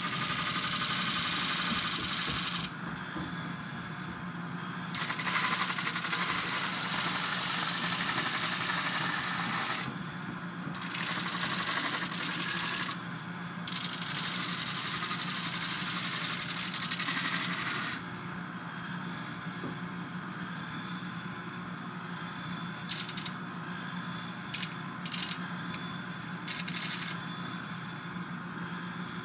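Disc sander running with a steady motor hum while a kayak paddle blade is pressed against the disc in several passes, each a loud rasping hiss lasting a few seconds. For the last third the sander runs on its own with a few light taps.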